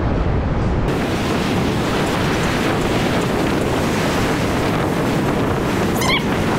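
Wind buffeting the microphone over ocean surf: a steady, loud rushing rumble that turns hissier about a second in.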